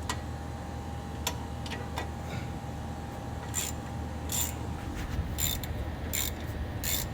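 Ratchet wrench working a brake caliper bolt: a few separate clicks, then from about halfway a steady run of ratcheting strokes, one every bit under a second. The bolt keeps turning without coming out.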